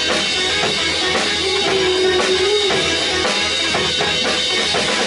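Rock band playing an instrumental passage without vocals: steady drum-kit beat under guitar and keyboard, with a held melodic note in the middle.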